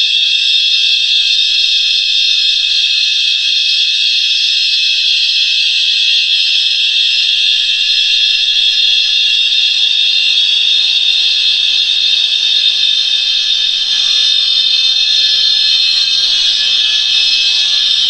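Synthesized sci-fi 'alien turbine' sound effect: a steady, loud, high-pitched whine made of many close tones, with a faint low rumble growing in over the second half.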